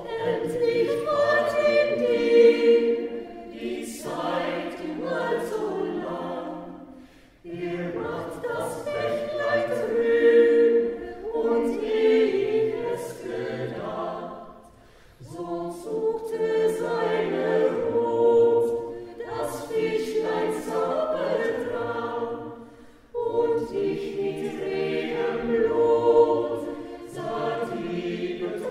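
Small mixed choir of men's and women's voices singing a cappella, in phrases about seven to eight seconds long with brief pauses between them.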